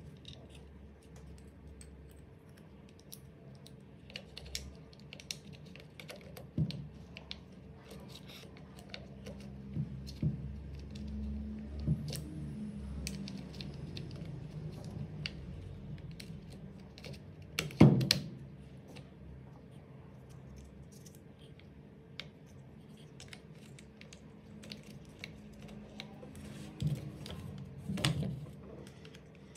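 Small plastic parts of a Makita cordless hammer drill being handled and clicked into place: the trigger switch and wiring fitted into the plastic housing, with scattered light clicks and taps and one louder knock a little past halfway. A faint steady hum runs underneath.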